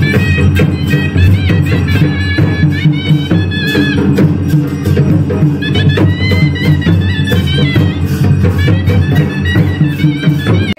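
Himachali devta ritual music: a reedy wind instrument playing a wavering, bending melody over steady, continuous drumming.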